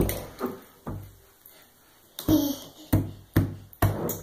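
A small white cup knocked repeatedly against a bathtub rim by a baby, about half a dozen sharp, irregular knocks.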